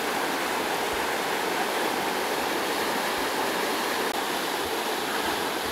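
River rapids rushing, a steady even roar of white water.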